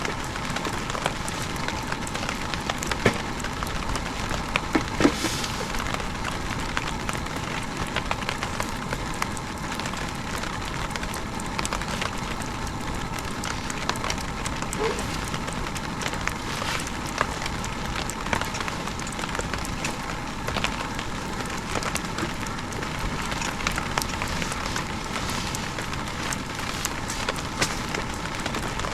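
Heavy rain falling steadily, with many small ticks and pops scattered throughout and a few louder pops about five seconds in.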